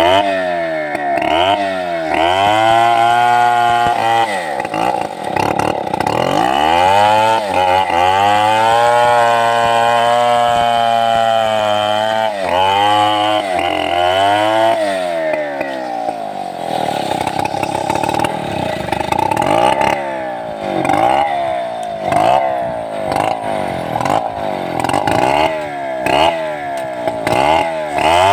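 Stihl 070 big single-cylinder two-stroke chainsaw cutting sengon (albizia) wood. The engine holds high revs for stretches and repeatedly drops in pitch and picks up again. In the second half the drops and recoveries come quickly, about one a second.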